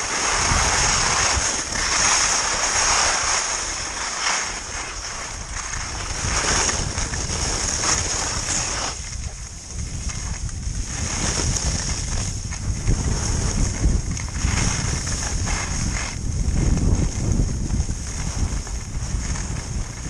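Skis scraping and hissing over packed snow during a downhill run, with wind buffeting the camera's microphone. The noise swells and eases every second or two, following the turns.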